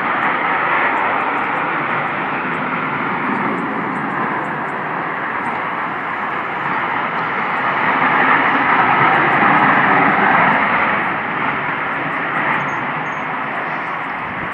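A loud, steady rushing drone from the sky, of the kind circulated as the unexplained 'strange sky sounds', with no clear pitch. It swells about eight seconds in and eases off again a few seconds later.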